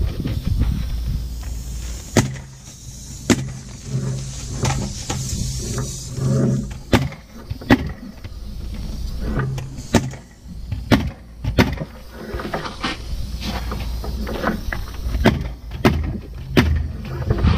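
Pneumatic roofing nailer driving nails into asphalt shingles: about ten sharp shots at irregular intervals, some in quick pairs, over a low steady hum.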